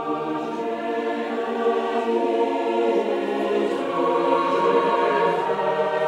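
Choral music: a choir singing slow, long-held chords that change a few times.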